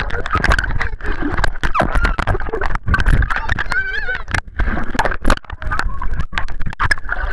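Underwater audio from a waterproof camera in a swimming pool: churning water and bubbles with many sharp knocks and bumps against the camera, and muffled children's voices, with a warbling squeal about four seconds in.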